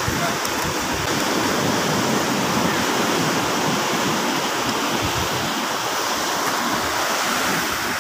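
Steady rush of rough surf breaking on a sandy beach, with some wind in the microphone.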